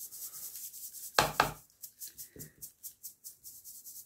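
A fine wire-mesh kitchen sieve of Demerara sugar shaken over a stainless steel bowl: quick, even rasping strokes of about six a second as the grains scrape through the mesh, sieved to break up any lumps. Two sharp knocks come close together a little over a second in.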